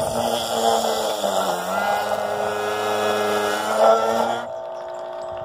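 Electric citrus juicer's motor whirring as orange halves are pressed onto its spinning reamer, its pitch dipping under load about a second and a half in and then recovering. The motor stops about four and a half seconds in, leaving a faint steady hum.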